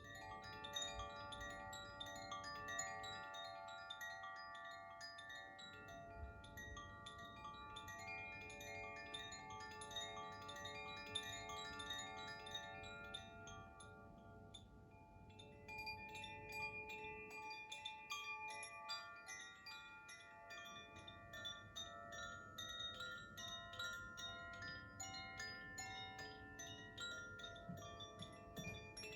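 Koshi chimes being gently swung, their clappers striking the tuned rods inside the bamboo tubes. Many light strikes ring over one another in a continuous chiming that thins out briefly around the middle and then builds again.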